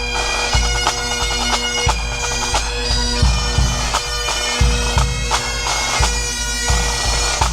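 Music: a melody over steady held drone tones, with regular drum strokes and deep bass beats.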